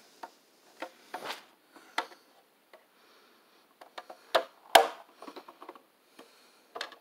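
Irregular clicks, taps and light knocks of a toy container trailer being handled by hand and its hinged rear door swung open, with soft rubbing between them. The loudest knock comes a little before five seconds in.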